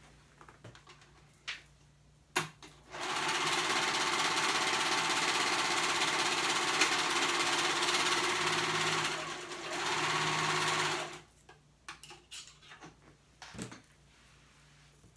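Serger (overlock machine) running for about eight seconds as it stitches a short seam, easing off briefly near the end before stopping. Handling clicks and knocks come before and after the run.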